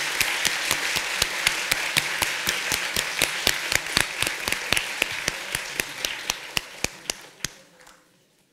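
Large audience applauding, with one close pair of hands clapping sharply about four times a second over the crowd's applause. The applause fades away near the end.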